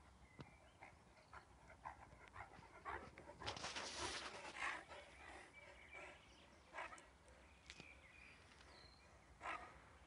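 Leonberger dog panting in quick, faint breaths, louder for about a second around four seconds in.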